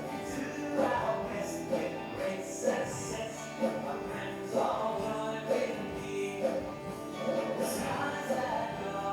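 A school song playing: sung voices over instrumental accompaniment, moving from note to note about once a second.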